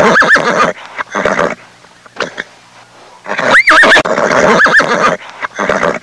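Horse neighing several times: a burst at the start, a shorter one about a second in, and a long, wavering whinny from about three to five seconds in.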